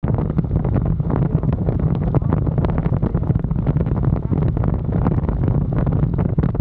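Wind buffeting the microphone of an action camera on a moving motorcycle: a loud, steady, gusty rumble with rapid irregular flutter. It cuts in suddenly at the start.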